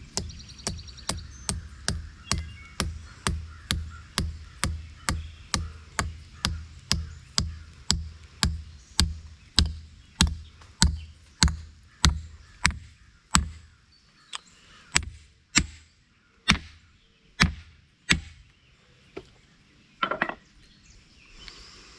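Hammer striking steel wedges into the top of a new sledgehammer handle to lock the head on, each blow a sharp knock with a low thud. About two blows a second at first, then slower, spaced-out blows, with the last few well apart.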